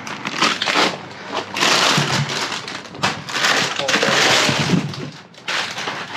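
Rustling and crunching of bags and packaging as produce is rummaged and handled in a dumpster, in several long noisy stretches with short breaks between them.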